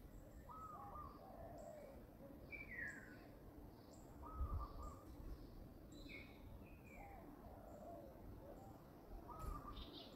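Faint animal calls: about a dozen short chirps, some arching and some falling in pitch, every second or so over a low background noise. A brief low rumble comes about four and a half seconds in.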